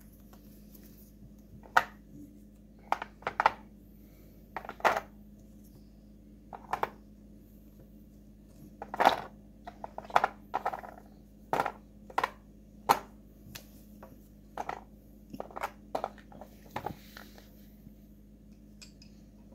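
Flat wooden magnetic toy fish pieces being dropped and laid one after another into a round storage tub, giving a run of irregular wooden clacks and clatters.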